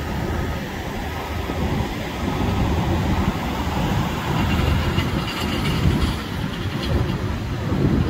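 Ocean surf washing in and breaking along the shore, with wind rumbling and buffeting on the microphone.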